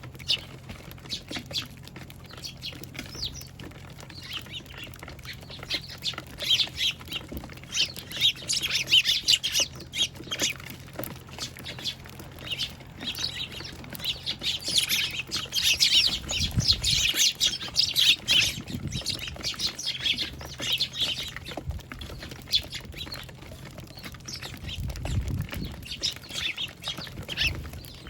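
A flock of Eurasian tree sparrows chirping at a feeder: many short chirps overlapping, thickest around the middle.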